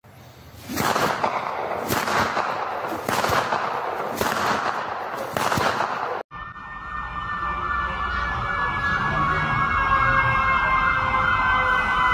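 A loud, noisy sound pulsing about once a second, cut off suddenly about six seconds in and followed by a siren wailing with a fast warble, slowly falling in pitch.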